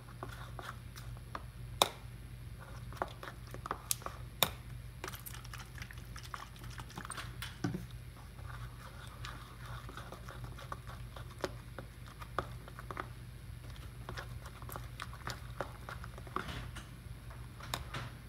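Hands kneading sticky glue-and-borax slime in a bowl: irregular wet clicks, crackles and squelches, over a steady low background hum.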